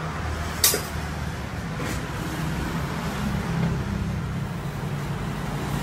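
Automatic edge banding machine running with a steady, low motor hum, a sharp click about two-thirds of a second in and a fainter one near two seconds.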